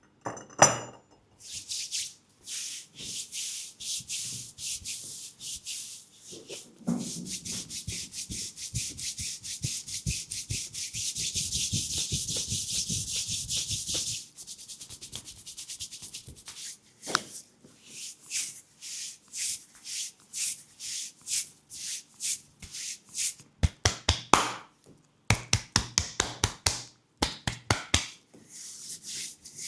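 Hands massaging a leg, rubbing the skin in quick repeated strokes about two a second, which blend into one continuous rub for several seconds in the middle. Near the end comes a run of sharp clicks.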